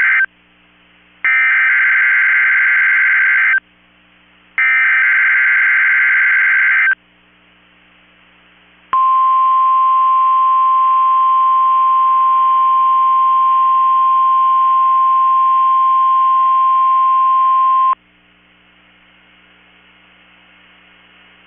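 NOAA Weather Radio KEC65 sending the start of a Required Weekly Test. First come the end of one buzzing SAME digital header burst and two more bursts of about two seconds each. Then the 1050 Hz warning alarm tone, one loud steady beep held about nine seconds that cuts off sharply, followed by faint radio hiss.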